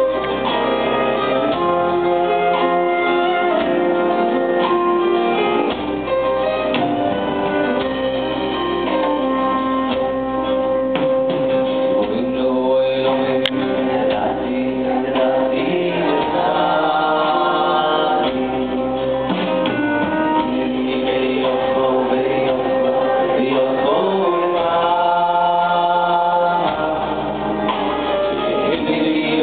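A male vocalist singing a Hebrew song live into a microphone, accompanied by instruments including a bowed cello.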